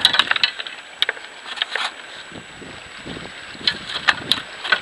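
Scattered knocks and taps on a small boat's deck as a freshly netted sheepshead is handled in the landing net, with a cluster of sharper taps near the end.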